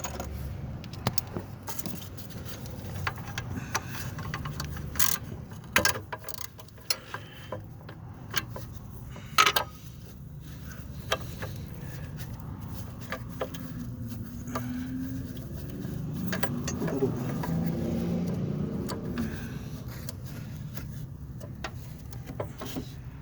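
Hand tools and metal engine parts clinking and clicking now and then during engine disassembly, over a low rumble. A wavering low hum rises and falls in the second half.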